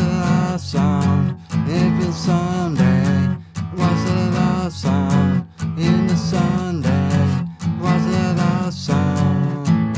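Acoustic guitar strummed in a steady rhythm, with a melody line over it that slides up and down in short repeated phrases.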